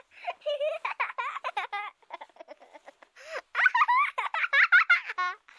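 Young children's voices laughing and giggling, high-pitched, in two lively bursts with a quieter stretch between them.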